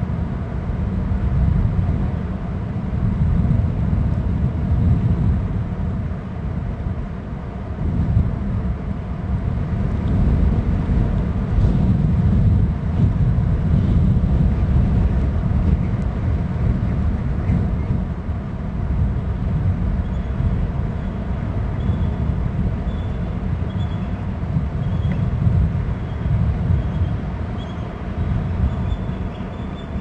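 Strong wind buffeting the nest cam's microphone: a low rumble that swells and eases in gusts. In the last third a faint run of short, high notes repeats about once a second.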